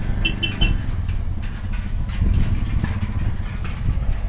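Motorcycle engine running steadily, a low rumble with a fast even pulse, with a few short high chirps about half a second in.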